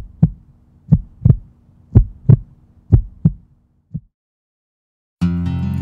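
Heartbeat sound effect: paired low thumps, lub-dub, about once a second, five beats, stopping about four seconds in. After a second of silence, acoustic guitar music begins near the end.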